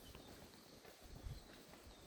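Near silence: faint outdoor room tone with a soft low thump about a second and a half in.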